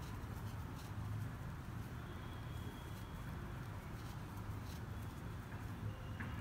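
Quiet background noise: a steady low hum with a few faint clicks, and a faint high tone held for about a second, roughly two seconds in.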